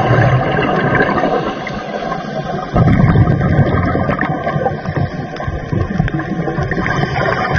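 Underwater ambience: a steady rushing, rumbling water noise that swells louder about three seconds in.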